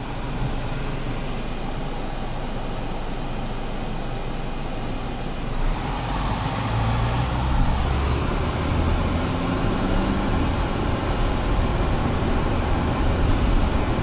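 Car running, heard from inside the cabin: a steady engine and air-conditioning fan noise that starts suddenly and grows louder and deeper about six seconds in.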